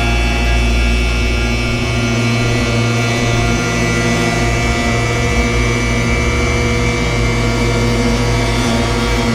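Noise-music drone from DIY oscillator electronics: many steady held tones stacked over a heavy low bass drone. About two seconds in, the deepest drone breaks up into a rough, fluttering pulse while the upper tones hold.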